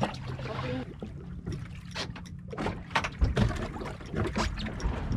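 Water slapping against a boat's hull, with scattered sharp knocks and a low steady hum underneath.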